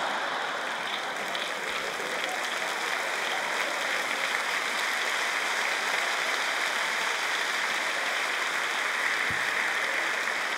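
A large audience applauding steadily, an even round of clapping in response to a comedian's joke.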